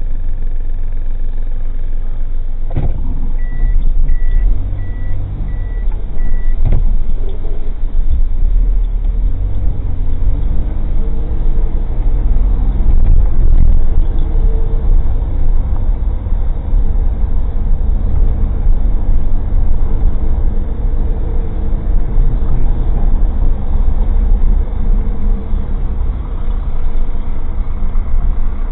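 Old kei car's engine and road rumble heard from inside the cabin through a dashcam microphone, with rattling, growing louder after a knock about three seconds in. A run of about six short high beeps follows just after the knock.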